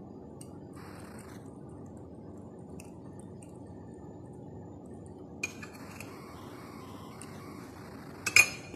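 Light clinks and clicks of kitchen utensils over a steady low hum, the loudest a pair of sharp clicks near the end.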